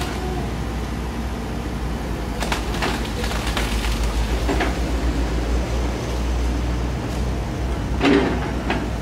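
Komatsu PC78US excavator's diesel engine running steadily as the arm works, with a series of sharp cracks of tree branches snapping, the loudest about eight seconds in.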